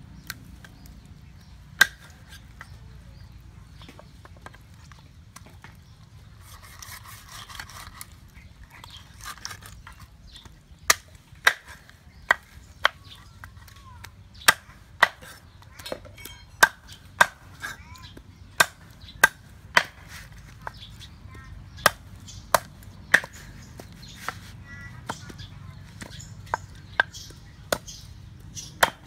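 Cleaver chopping raw chicken into pieces on a round wooden chopping board: sharp, irregular knocks of the blade into the wood. There are a few early on, then quick runs of up to about two a second through the middle, and softer ones near the end.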